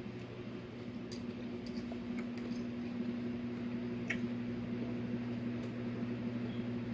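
Faint wet chewing and a few sharp mouth clicks from someone eating salad, over a steady low electrical hum.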